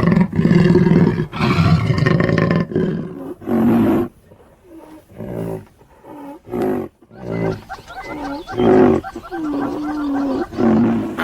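Large animal calling: several loud, rough calls over the first four seconds, then a run of shorter pitched calls, some bending up and down in pitch.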